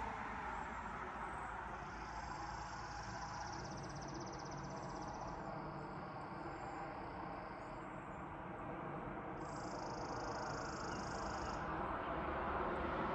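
Outdoor background noise with a steady low rumble, and a high, fast trill heard twice, first lasting several seconds and then again briefly near the end; the background grows a little louder toward the end.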